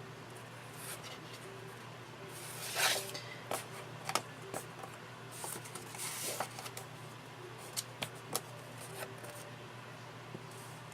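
Paper and cardstock being handled: rustling with light taps and clicks, a louder rustle about three seconds in and another around six seconds, over a steady low hum.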